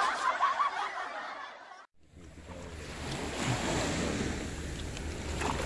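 Fading laughter that cuts off about two seconds in, then wind and sea noise from a small outrigger fishing boat on open water, with the low steady hum of the boat's engine underneath.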